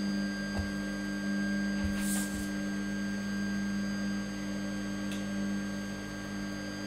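Steady hum of several constant tones from a Steadytech Mini 3D printer standing powered with its hot end heated, with a faint click and a short rustle about two seconds in.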